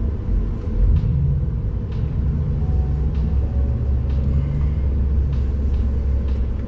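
Steady low road-and-engine rumble inside the cab of a moving tow truck.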